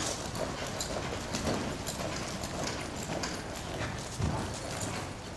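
Hoofbeats of a Quarter Horse loping on a soft sand arena floor, a repeated muffled beat of hooves striking and scuffing the dirt, with one heavier thud about four seconds in.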